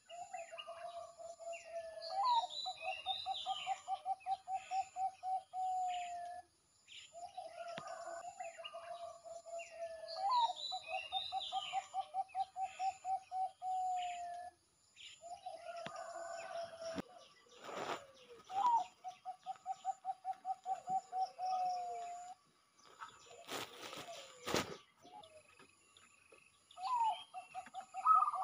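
Zebra dove (Geopelia striata) singing its cooing song: each phrase opens with a short flicked note, runs into a fast string of short coos and ends on a drawn-out note, repeated about every seven to eight seconds.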